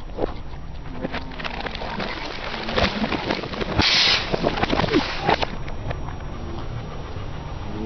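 Crackling and crunching of objects being crushed under a car tyre: a run of sharp snaps, densest about four seconds in, over a low steady rumble.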